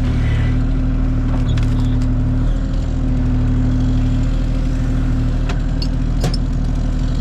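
Kubota KX040 mini excavator's diesel engine running steadily, with a few short clanks or knocks.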